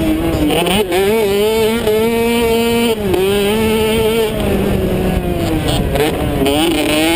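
Onboard sound of a Kawasaki KX65 two-stroke motocross bike's engine running hard on the race track, its pitch wavering with the throttle and dipping sharply twice, about a second in and about three seconds in, as the rider shifts or chops the throttle. Wind rush on the microphone runs underneath.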